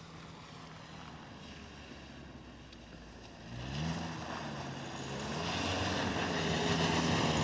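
Opel Astra H 1.6 four-cylinder petrol engine pulling the car up a snowy, muddy slope with traction control on. The engine runs steadily at first, revs up sharply and briefly about halfway through, then holds higher revs and grows louder as the car approaches.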